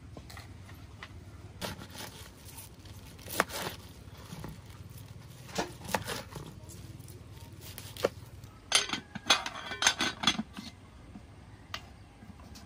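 Scattered clicks and knocks of objects being handled, with a busier run of sharp clatter about nine to ten seconds in.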